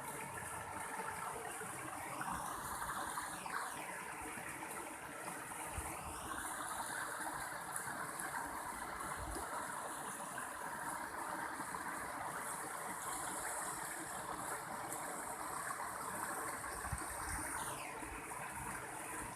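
Mountain stream water flowing steadily. Faint high sliding tones fall in pitch about three seconds in and again near the end.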